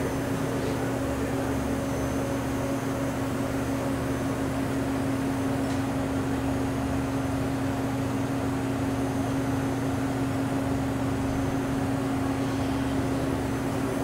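1989 Hurco BMC-20 CNC vertical machining center running through its program cycle with the spindle turning and nothing being cut: a steady machine hum with one even tone held throughout.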